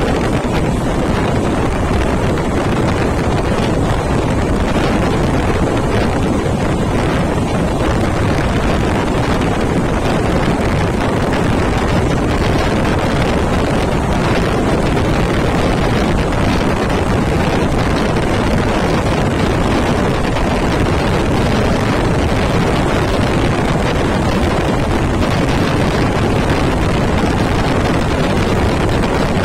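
Loud, steady rush of wind over a microphone held out of a fast-moving passenger train, mixed with the coach's running noise on the rails.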